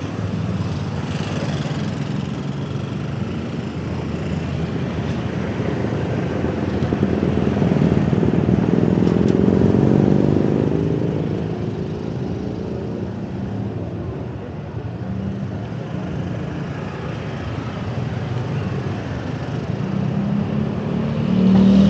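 Steady city street traffic, cars and motorbikes going by. One passes close, swelling and fading away about eight to eleven seconds in.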